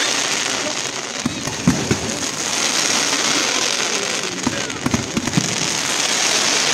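Fireworks display going off: a dense crackling hiss broken by many sharp bangs.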